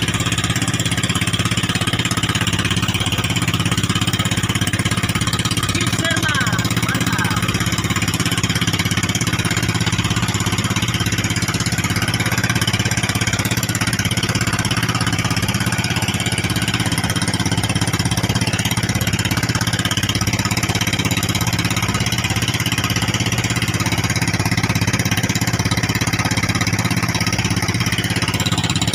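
Fishing boat's engine running steadily with the boat underway, a constant low drone with wind and water hiss over it.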